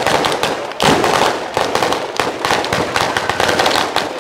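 A Bolognese-style ground firework battery going off: a dense, rapid crackle of firecracker bangs, getting louder about a second in.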